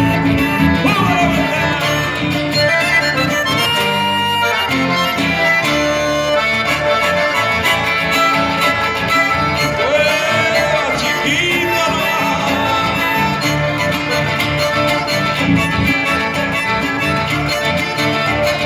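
Live chamamé: a button accordion carrying the melody over strummed acoustic guitars, playing steadily throughout.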